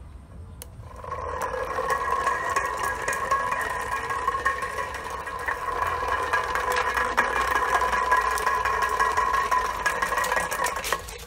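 Small electric motor of a homemade toy car running with a steady whine, its tin-can wheels rattling on concrete as it drives. It starts about a second in and stops just before the end.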